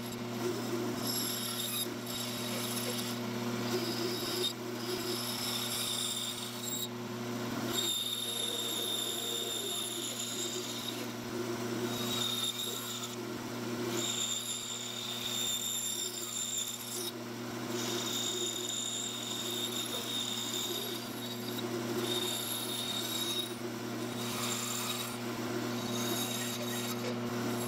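Bandsaw running with a steady motor hum while its blade cuts a curved profile through a block of poplar. A high whine comes and goes with each pass of the blade through the wood.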